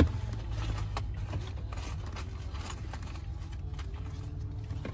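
Steady low hum of a taxi with its engine running, heard from inside the cabin. There is a sharp knock right at the start and scattered light clicks and rustles of handling.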